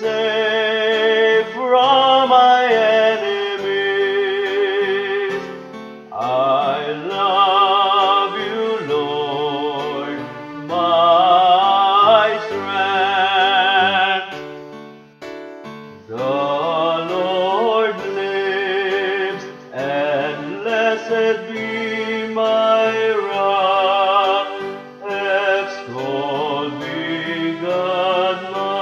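Responsorial psalm music: a melody with strong vibrato over steady held accompanying chords, in phrases of a few seconds with brief pauses between them, the longest about halfway through.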